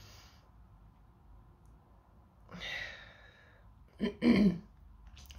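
A woman breathing out in a long sigh about two and a half seconds in, then two short, louder voiced breaths from the throat about four seconds in.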